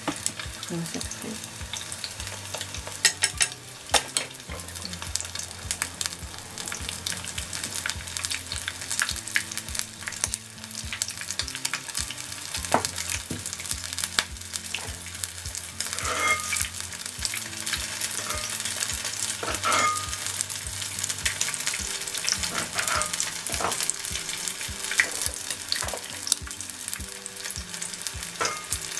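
Shrimp shinjo logs deep-frying in oil at about 160 °C: a steady sizzle with many small crackling pops and a few light clicks.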